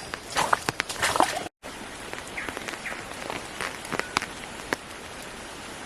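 Boots splashing through shallow water on a flooded forest track, several sharp splashy steps in the first second and a half. After a brief break comes a steady patter of water with scattered small drips.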